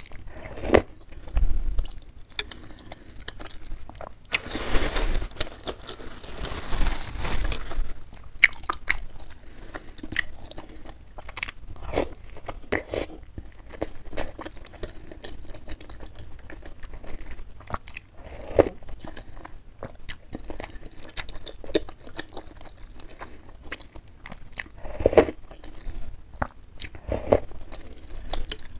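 Close-miked eating sounds: wet chewing and smacking of a mouthful of beef meatball soup with rice vermicelli, in short irregular clicks. A long slurp of broth starts about four seconds in and lasts about four seconds.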